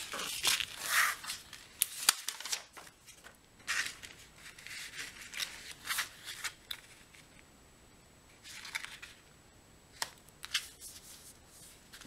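Cardstock panels being handled, slid against each other and pressed down onto a card base, with an uneven papery rustling and swishing. A sharp tap about two seconds in and another later on, as the card meets the table.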